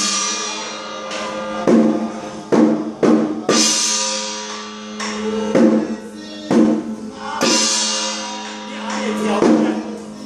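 Chinese temple ritual percussion of drums and crashing cymbals struck in an irregular beat, about one to two strikes a second, over a steady ringing tone, accompanying a spirit-medium trance.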